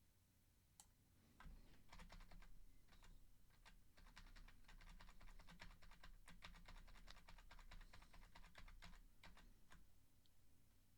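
Faint typing on a computer keyboard: a quick run of key clicks that starts about a second and a half in and thins out near the end.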